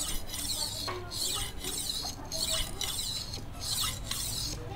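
A Vanadis 8 steel golok blade stroked back and forth on a natural Bogor whetstone of about 1000–1500 grit. It makes a gritty, hissing scrape about twice a second.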